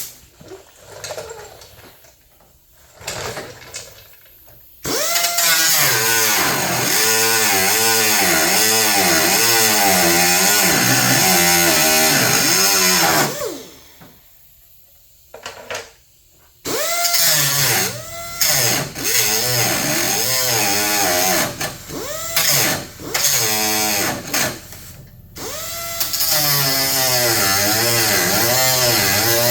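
Handheld power cutting tool with a spinning wheel biting into the sheet-metal seam to widen a gap that is too tight, its motor pitch wavering as it loads. It runs in bursts: a couple of short ones, one long cut of about eight seconds, a pause, a string of short stabs, then another steady cut near the end.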